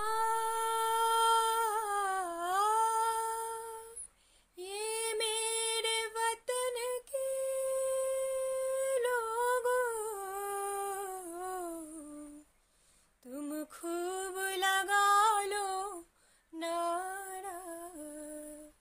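A woman singing unaccompanied: a slow, melodic line of long held notes with gliding ornaments, sung in phrases with short breaks between them.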